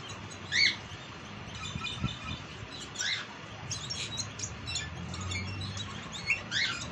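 Caged songbirds giving short, sweeping chirps and call notes at irregular intervals, the loudest just under a second in and again near the end.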